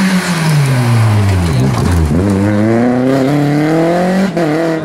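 Rally car's engine going past on a stage. The engine note falls for about two seconds as the car slows into the bend, then climbs steadily as it accelerates away. There is a quick gear change a little after four seconds.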